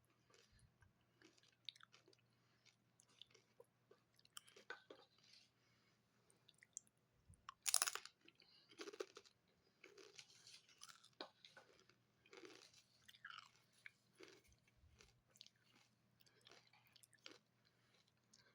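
Close-miked chewing of a sandwich and crunchy tortilla chips: soft, irregular crunches and mouth sounds, with one sharp, loud crunch about eight seconds in.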